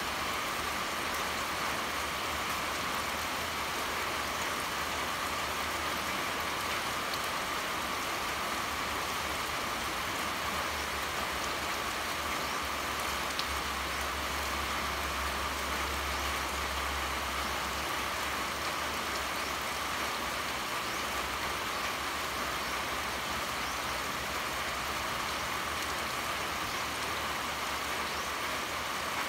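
Steady pouring rain, an even hiss of falling water, with a low rumble underneath that grows a little louder around the middle.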